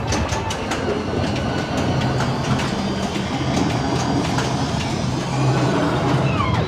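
Din of a room full of pinball machines in play: flipper and solenoid clicks and knocks over a rumble of rolling balls and electronic game sounds. Near the end one machine gives a falling electronic sweep.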